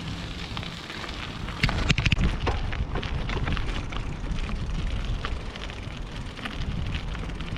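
Noise of a bicycle being ridden: scattered crackles and clicks, with wind rumbling on the microphone that gets stronger about two seconds in.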